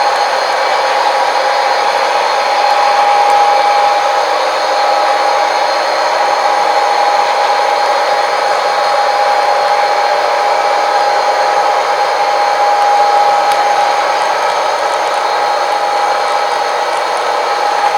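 Model train running on the layout: a steady electric-motor whine that holds one pitch throughout, with faint ticking of wheels over the track near the end.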